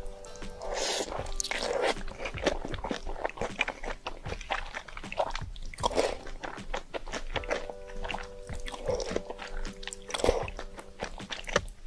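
Close-up eating sounds of a person chewing and biting into spicy instant noodles with shrimp: irregular wet crunches and mouth clicks, with louder bites every couple of seconds.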